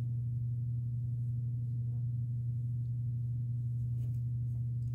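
A steady low hum, one unchanging deep tone with a fainter overtone, holding at the same level throughout.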